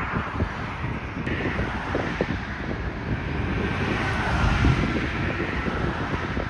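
Wind buffeting the microphone over a steady rush of passing traffic, which swells about halfway through.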